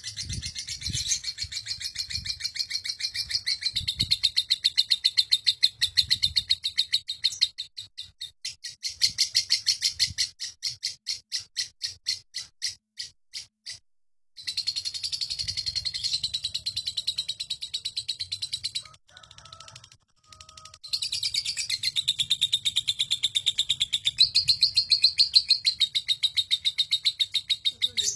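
Lovebird 'ngekek': a long, rapid chattering trill of high chirps run together. Midway it loosens into separate chirps and breaks off twice briefly, then starts again and runs on.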